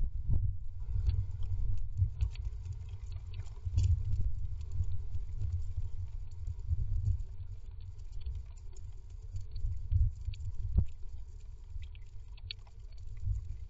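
Great tit shifting and working in its moss nest cup inside a wooden nest box, heard close up: irregular low bumps and rumbles from its body against the nest and box, with scattered small clicks and scratches.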